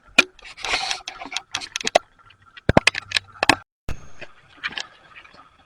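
Model train running in reverse along its track, with irregular sharp clicks and rattles from the wheels and rolling stock.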